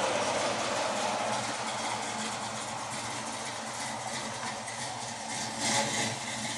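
1977 Camaro's newly fitted exhaust running at low speed as the car rolls along, easing off slightly, with a brief swell in level near the end.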